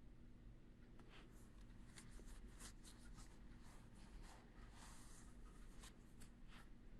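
Near silence: faint room tone with a low steady hum and a scattered run of soft scratchy clicks and rustles.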